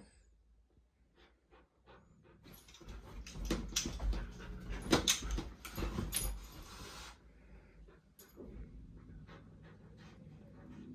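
Alaskan Malamute puppy tussling with a cat on a bed: a few seconds of scuffling, rustling bedding and soft thuds start about two and a half seconds in. After that come the puppy's quieter whines and panting.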